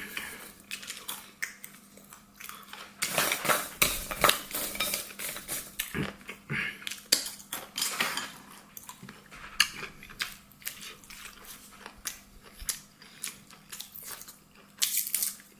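Eating utensils clicking and clinking against bowls and plates in irregular clusters of sharp taps, the busiest a few seconds in and again near the end.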